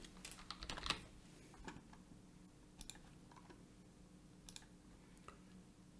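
Faint clicks of a computer keyboard and mouse: a quick run of key presses in the first second, then scattered single clicks, over a faint steady low hum.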